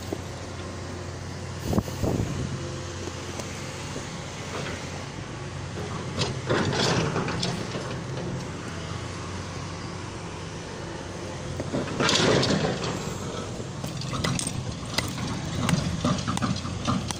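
Diesel engine of a tracked excavator running steadily, swelling louder twice as it works. Near the end a small hammer taps on loose rocks several times.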